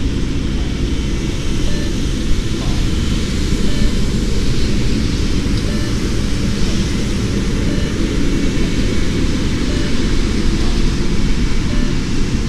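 Steady wind rumble on the microphone. Faint, short electronic beeps come through about every two seconds, the cadence of the beep-test recording.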